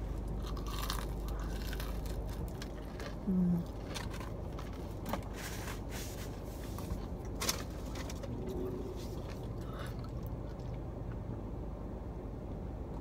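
Close-up eating sounds: a person biting into and chewing a lemon pepper dry-rub chicken wing, with scattered mouth clicks and smacks and a short hum about three seconds in, over a steady low hum. Near the end comes a sip of drink from a cup.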